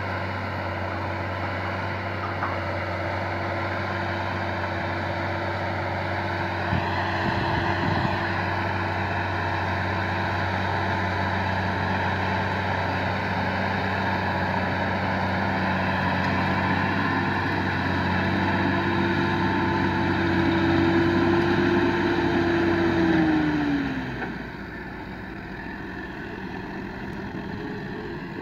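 An engine running steadily at a constant speed. Near the end its pitch glides down and it gets quieter, as the engine slows.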